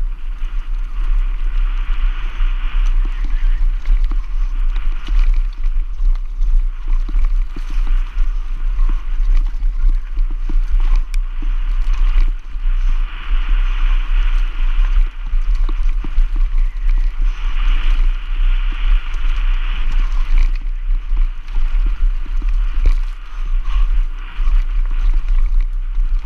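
Mountain bike running fast down a rough dirt singletrack, heard from a rider-mounted action camera: a steady deep rumble of wind buffeting the microphone, with tyre roll and rattling of the bike over the trail that swells and fades every few seconds.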